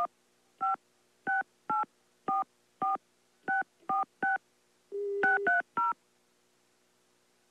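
Touch-tone telephone keypad being dialed: a quick run of about a dozen short two-tone beeps, with a brief steady tone about five seconds in before the last three beeps. The beeps are a phone number being keyed in.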